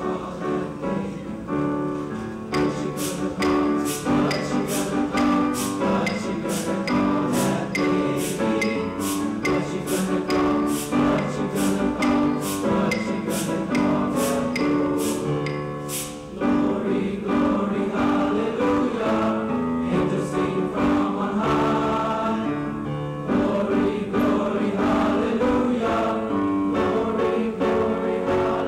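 Junior high school choir singing a Christmas song with accompaniment. Sharp hits on the beat, about three every two seconds, run through roughly the first half.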